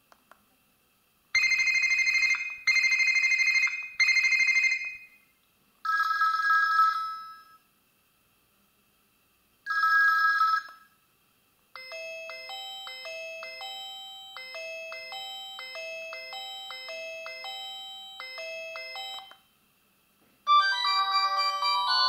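Built-in ringtones of a myPhone Hammer 4 rugged phone previewed one after another through its speaker as the menu is scrolled. First come three short electronic ring bursts, then two single bursts, then a repeating beeping melody for about eight seconds, and near the end a busier tune begins.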